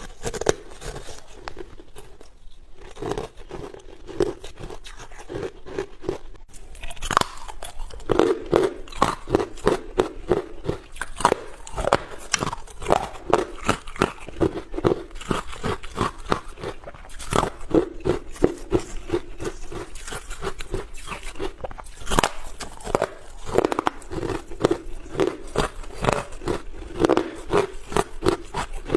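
A person biting and chewing hard carbonated ice close to the microphone: rapid sharp crunches, several a second, with a brief lull about two to three seconds in.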